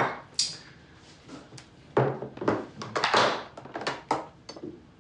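Food containers being unpacked from a cloth bag and set on a table: a series of short knocks, clicks and brief rustles, the busiest stretch about two to three and a half seconds in.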